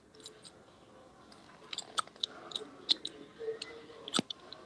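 Scattered faint clicks and small mouth or handling noises close to a phone microphone.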